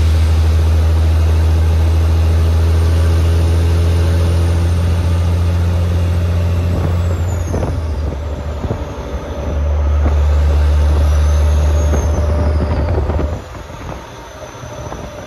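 Cat C15 (6NZ) diesel of a Western Star 4900 truck running under load at steady revs, heard from outside the cab by the mirror. The engine note falls off about seven seconds in, comes back strong about ten seconds in, and drops away again near the end.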